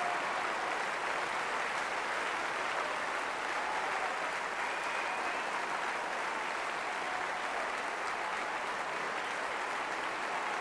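Opera house audience applauding steadily in an ovation for a curtain call.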